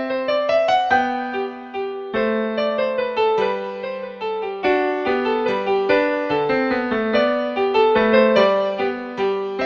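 Background music: a light piano melody played in a steady rhythm.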